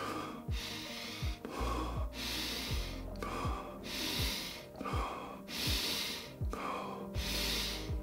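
A man breathing fast and deep through the mouth, each breath drawn in and let out forcefully, about four full breaths, over background music with a steady kick-drum beat. This is the quickened-pace round of a guided breathwork exercise.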